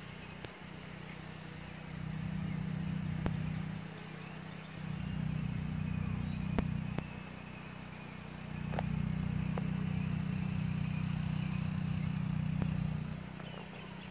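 Honeybees buzzing at a hive entrance, the drone swelling three times as bees fly close by and fading back in between, with a few faint clicks.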